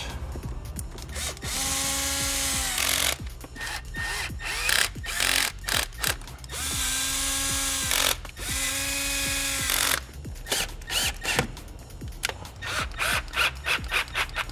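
Cordless drill/driver driving bolts in three runs of about a second and a half each, the motor spinning up at the start of each run and winding down at the end. Between the runs come short clicks and knocks of tools and parts.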